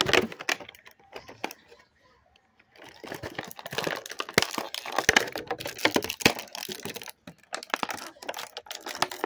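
Clear plastic blister packaging crackling and crinkling as it is pulled apart by hand, in quick irregular clicks. There is a short pause about two seconds in.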